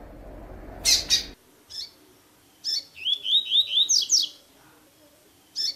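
Double-collared seedeater (coleiro) singing in the 'tui-tui' song style: a pair of sharp high calls about a second in, then a phrase of quick rising notes, about four a second, ending in two higher sweeping notes. Background hiss drops out about a second in, and the phrase starts again at the very end.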